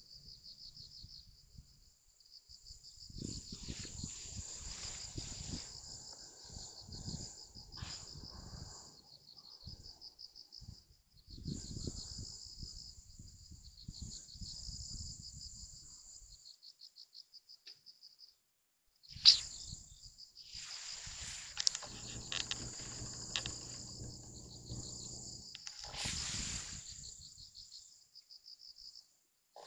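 Crickets and other insects chirping in a steady, fast-pulsing chorus, with a low rumbling noise that comes and goes, and one sharp click about two-thirds of the way through.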